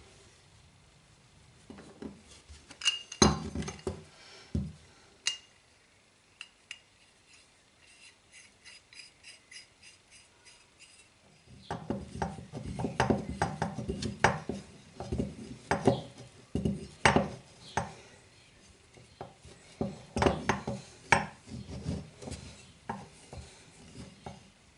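Small metal parts of a model soldering lamp clinking and knocking as they are handled and fitted together: a few sharp knocks, then faint even ticks, then a long stretch of busy clatter from about halfway.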